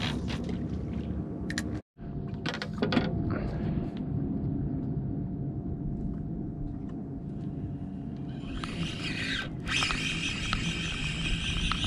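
A spinning reel whirring as line comes in against a hooked fish, starting about two-thirds of the way through, over a steady low rumble with a few clicks near the start.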